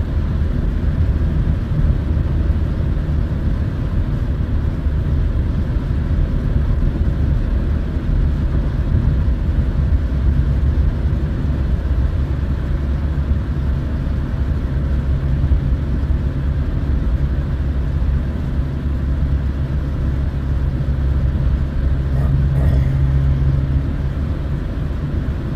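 Car driving at highway speed, heard from inside the cabin: a steady low drone of engine and tyre noise, with a hum that grows a little stronger near the end.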